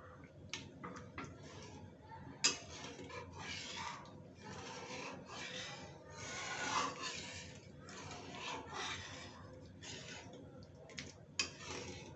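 Metal spatula scraping and stirring thick dal around a metal kadhai in repeated strokes, about one a second. A sharp clink of metal on the pan comes about two seconds in and another near the end.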